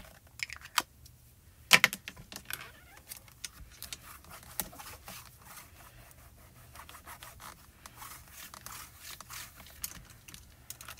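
Light taps of an ink pad dabbed on a clear acrylic stamp, then a sharp knock about two seconds in as the hinged door of a stamping platform is shut onto the card. After that, hands press and rub on the acrylic door with many small clicks and scratches.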